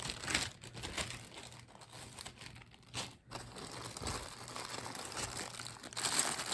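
Plastic jewelry bags crinkling and rustling as they are handled, in a run of irregular crackles that gets louder and denser near the end.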